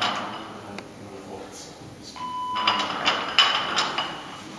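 A short electronic beep about two seconds in, followed by a burst of noisy sound with two sharp knocks as a loaded barbell lift is performed.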